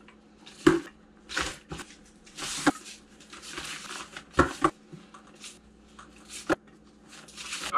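Food cans being packed one by one into a nylon backpack: the pack fabric rustles as it is handled, and there are several sharp knocks as the cans go in.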